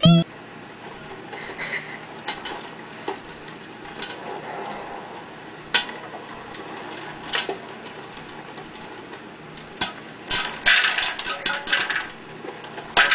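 Popcorn kernels popping in an electric stirring popcorn popper with a clear dome lid. Single pops come every second or two at first, then quicken into rapid popping from about ten seconds in, over a steady low hiss.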